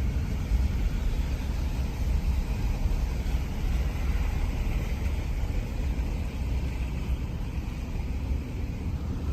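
Vehicle driving along a road, a steady low rumble of engine and road noise.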